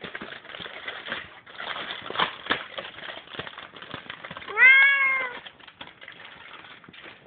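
Plastic wrap and foil crinkling and crackling as a dish is unwrapped. About two-thirds of the way through there is one short call that rises then falls in pitch, like a cat's meow.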